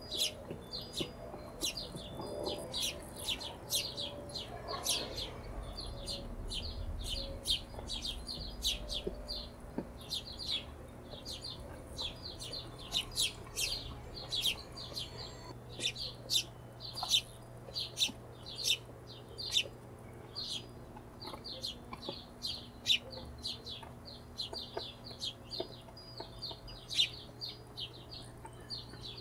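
Hummingbirds chipping: a continuous run of short, sharp, high chip notes, several a second.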